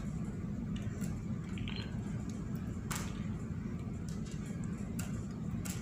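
A steady low machinery hum, with a few faint sharp ticks as hands handle a monofilament fishing line.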